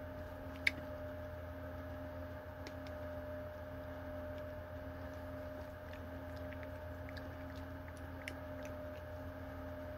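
Steady electrical room hum, with one sharp click about two-thirds of a second in and a few fainter ticks later.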